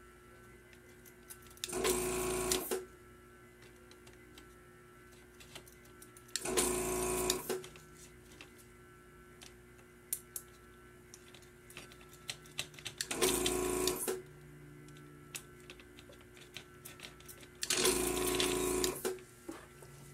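Handheld desoldering gun's built-in vacuum pump running in four short bursts of about a second each, sucking molten solder from the pins of a faulty power switch on a scale's circuit board.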